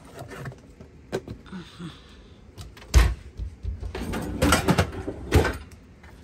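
Dishwasher and kitchen cabinet being handled: a loud knock about three seconds in, then clattering of the dishwasher racks and sharp clicks at the detergent dispenser on the door.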